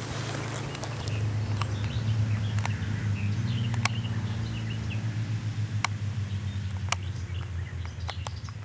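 A motorcycle engine running low out of sight, getting louder about a second in and easing off after the middle. Birds chirp over it, with a few short sharp ticks.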